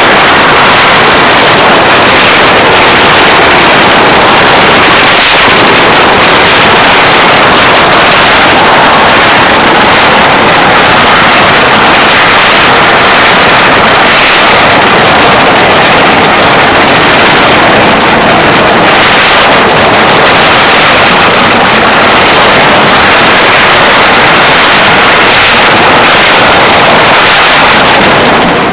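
Long string of firecrackers going off without a break: a dense, very loud crackle.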